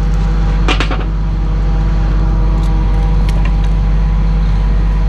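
Pump service truck's engine running steadily with a low drone, with a quick rattle of metal clanks a little under a second in.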